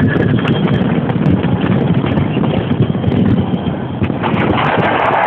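Fireworks going off in a dense barrage of overlapping bangs and crackles with a heavy low rumble, close on a phone microphone. Near the end, crowd voices start cheering.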